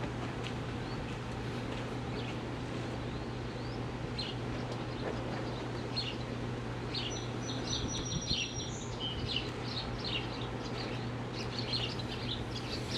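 Birds chirping in many short calls, with one thin whistle about halfway through, over a steady low hum.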